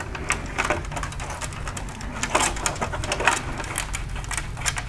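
Small irregular plastic clicks and scrapes as a pocket screwdriver lifts the locking clip on a headlight wire connector and the connector is worked loose, over a low steady hum.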